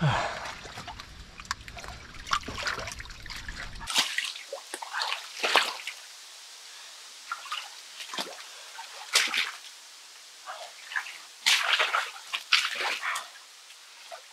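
Water and wet clay sloshing and splashing in a flooded trench, in a string of short, irregular splashes. A low steady rumble under the first few seconds stops abruptly about four seconds in.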